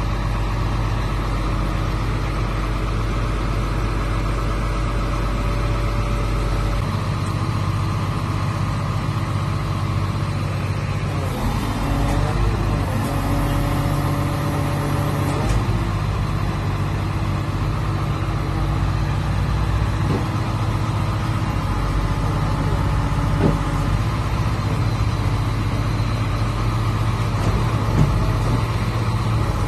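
Engine of an XCMG XZ420E horizontal directional drilling rig running steadily. Its low hum changes about seven seconds in, and a few wavering tones come and go near the middle.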